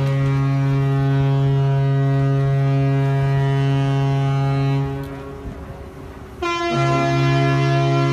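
Ship's horn sounding at a ship launch: one long, steady blast that stops about five seconds in, then after a short gap a second long blast on a different, brighter note.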